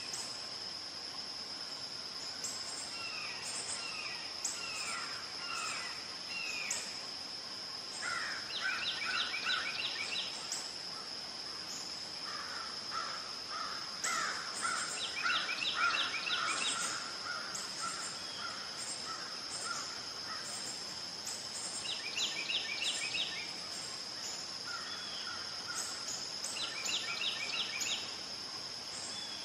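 Red-shouldered hawk calling: several series of quickly repeated, down-slurred screams, spaced a few seconds apart, with the loudest about a third and half of the way through. A steady high insect drone runs underneath.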